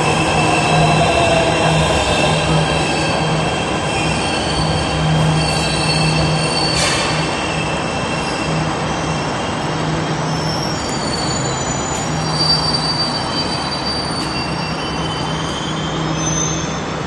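MRT Jakarta Ratangga metro train running into the station alongside the platform and slowing to a stop. A motor whine falls in pitch over the first couple of seconds, and several high, steady squealing tones from the wheels and brakes ring over the running noise, with a single sharp click about seven seconds in.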